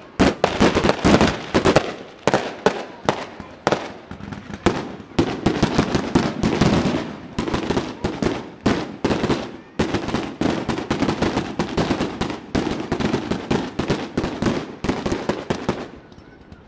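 Aerial fireworks display: a dense barrage of sharp bangs and crackling reports, several a second, thinning out near the end.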